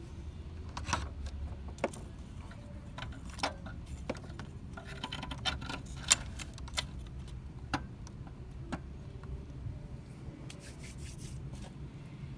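New alternator being worked into place by hand in a car's engine bay: irregular metallic clicks and knocks as its housing meets the brackets, with stretches of scraping and rubbing, over a low steady background rumble.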